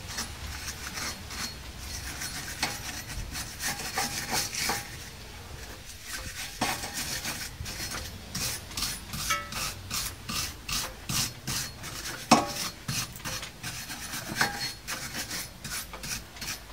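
Hand-held steel wire brush scrubbing rust off a car's steel wheel hub face in quick repeated scraping strokes, cleaning the surface before a new brake rotor goes on. One sharper knock about three-quarters of the way through.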